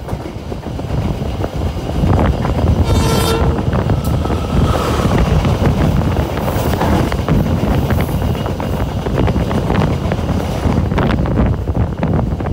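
Passenger train running, heard from on board as a loud low rumble and rush. A short train-horn blast, just under a second long, sounds about three seconds in.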